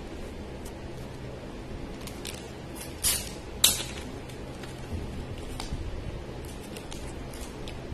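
Plastic cat-treat packet being handled and torn open: two short rips about half a second apart, about three seconds in, with faint handling clicks around them.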